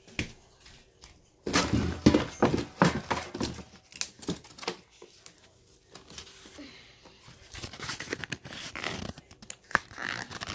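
Irregular rustling, scraping and knocks of handling close to a phone's microphone, loudest in a flurry of clicks and crinkles about a second and a half in.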